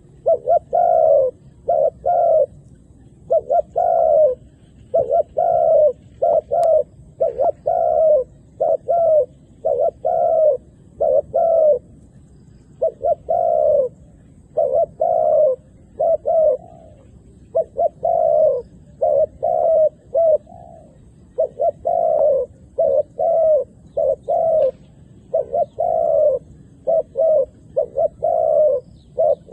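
Spotted dove cooing: loud, repeated short phrases of two or three low coo notes, separated by brief pauses.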